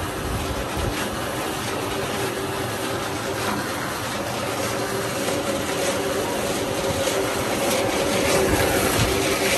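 A motor engine running steadily in the background, with a constant hiss.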